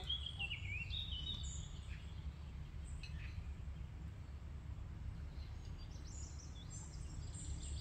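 Small birds chirping and calling over a low, steady rumble, with a run of chirps in the first two seconds and higher calls again near the end.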